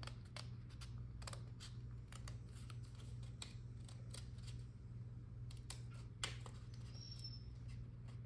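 Small scissors snipping through a sheet of waterslide decal paper in a string of light, irregular cuts, one sharper snip about six seconds in, over a steady low hum.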